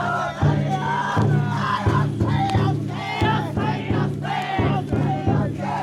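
Chousa drum float's large taiko drum beating at a steady pace, with the crowd of bearers shouting rhythmic calls together over it.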